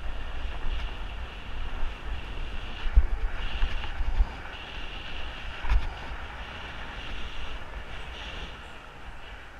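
Wind buffeting the microphone and deep road rumble as a fat bike rolls fast downhill, with jolts from bumps about 3 seconds in and again near 6 seconds.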